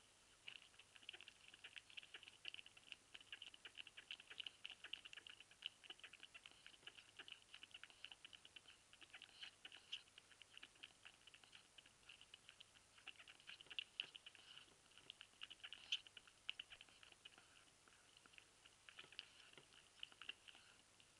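Ferret eating from a stainless steel bowl: a fast, irregular run of faint crunching clicks that starts about half a second in and keeps going.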